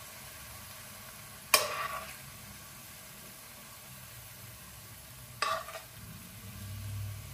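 A spoon scooping fried mushrooms in a nonstick frying pan, clinking sharply against the pan twice, about one and a half seconds and five and a half seconds in, over a faint steady hiss.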